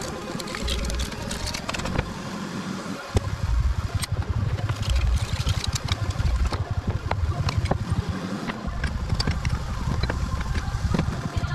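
Hand scraper scratching and knocking caked grime off classic Mini steel top suspension arms, in many short irregular strokes. A louder low rumble comes in about three seconds in and continues under the scraping.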